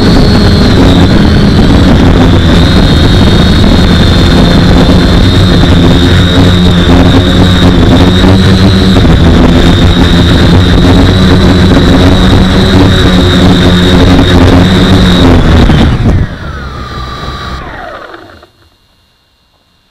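Four brushless outboard motors (2212, 1000 kV) and propellers of a small H-frame quadcopter, heard from its onboard camera, running steadily in flight with a high whine. Near the end it lands: the power drops and the motors wind down in a falling whine and stop.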